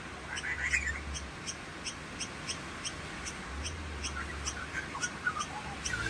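Lorikeets calling: an even series of short high pips, about three a second, with brief twittering chirps about half a second in and again near the end.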